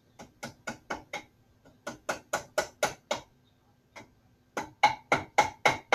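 Small hammer tapping tack nails into the edge of a wooden bar stool seat: three runs of quick, sharp taps, about four a second, the last run the loudest.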